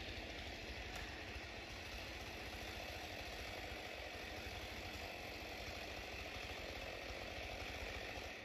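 Engine running steadily at an even pitch, heard from inside a side-by-side's closed cab.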